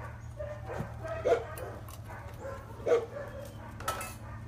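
A dog barking in short barks, the two loudest about a second and a half apart, over a steady low hum.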